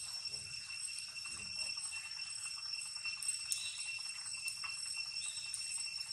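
Steady high-pitched shrilling of forest insects, with a few faint clicks and short chirps over it.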